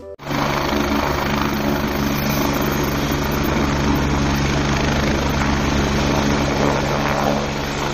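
Helicopter sound effect: the rotor beats fast and steady over a constant engine whine. It starts and stops abruptly.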